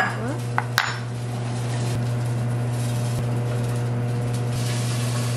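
Kitchenware clinking: three sharp clinks of dishes or utensils in the first second, over a steady low hum that runs throughout.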